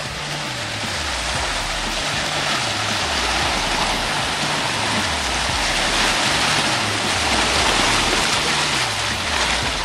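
Muddy water churning and splashing as a classic Range Rover pushes through a flooded ditch, over a music track with a repeating stepping bass line.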